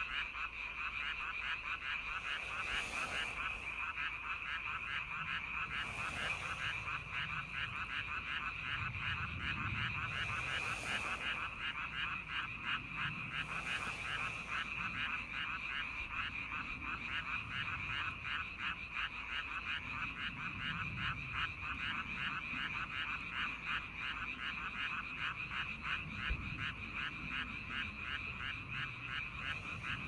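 Frog chorus: many frogs calling at once in a dense, rapid, steady trill.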